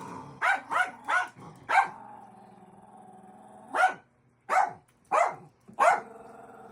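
A dog barking and grumbling at its owner in protest: a string of short barks that fall in pitch, with a long, low, drawn-out grumble between them.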